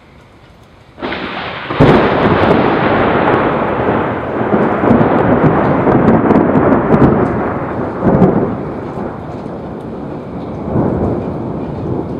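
Close thunder: a sudden onset about a second in and a sharp crack just after, then a long, loud rumble that swells several times and slowly dies away near the end, with rain falling underneath.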